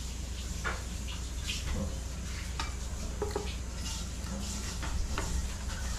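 Close-up eating sounds: chewing fried calamari and shrimp and fingers picking at the food on the platter, a string of small crackles and clicks over a low steady hum.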